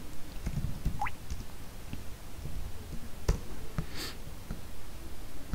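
Computer keyboard keys tapped as a short command is typed, with one sharper key click a little over three seconds in. A short rising chirp about a second in and a brief hiss about four seconds in also sound over a low background rumble.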